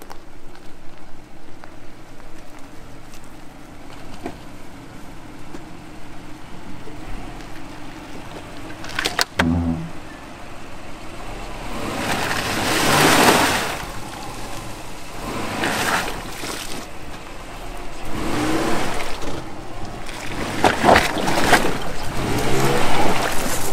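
Subaru Forester's flat-four engine revving in repeated surges as the car works through a soft sand rut, its tyres digging and spinning. The car is bogging down with a front wheel sunk in the rut. There is a sharp knock about nine seconds in.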